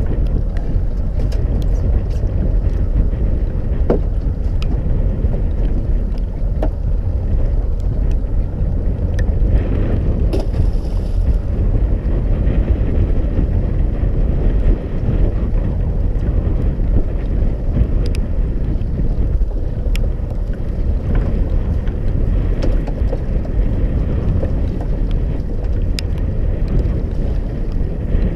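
Steady low rumble of wind buffeting the microphone aboard a small boat, with a few faint knocks scattered through it.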